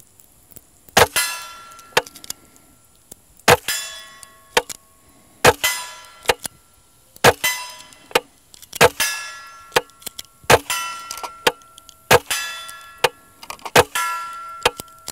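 An integrally suppressed Henry AR-7 .22 rifle fires about eight shots of CCI Clean supersonic ammunition, one every one and a half to two seconds, each a short muffled crack. Most shots are followed by the ringing clang of a struck steel target.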